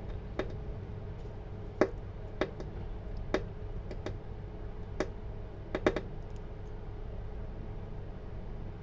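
About eight sharp, irregularly spaced clicks of a plastic syringe and tube being worked against an Epson printhead as it is flushed clean, over a steady low hum.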